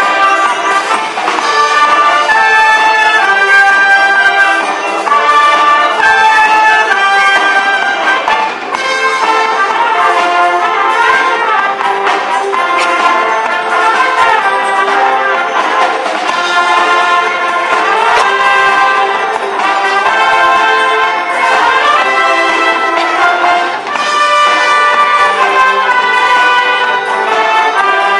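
Live wind band playing, with brass (trombones and trumpets) to the fore: held chords and moving melody lines that run on without a break.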